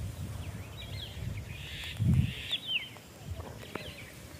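Birds chirping outdoors: several short, quick calls sliding downward in pitch between about one and two and a half seconds in, over a low rumble with a brief thump about two seconds in.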